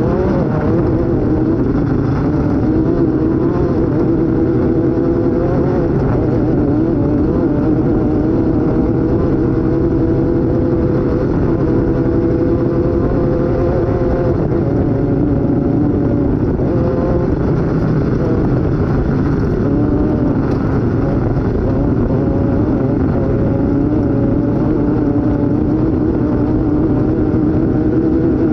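Onboard sound of an off-road race vehicle's engine running hard at high revs, its pitch rising and falling with the throttle over a constant low rumble.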